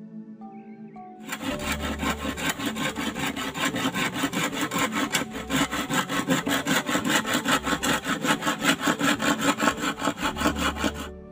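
Hand saw cutting through a green bamboo pole in quick, even back-and-forth strokes, about four or five a second, starting about a second in and stopping near the end.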